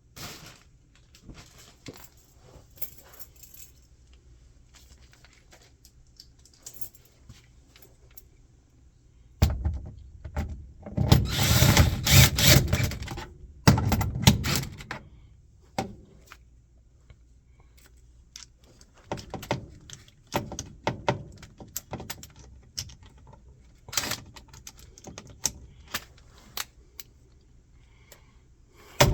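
Tools being handled during a repair: scattered clicks and metallic rattling, with a louder stretch of clattering in the middle.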